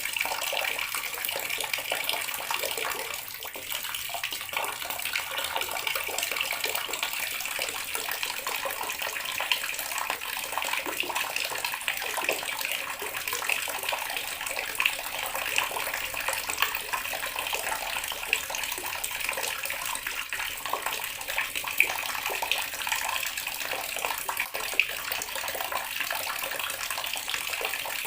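Water running steadily from a tap, a continuous splashing hiss with small irregular splashes through it.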